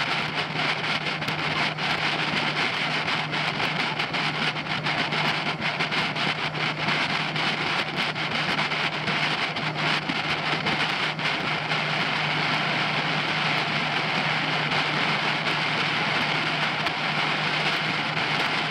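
Suzuki DF90 four-stroke outboard running steadily under way, its constant hum mixed with the rush of wind and water past the moving boat.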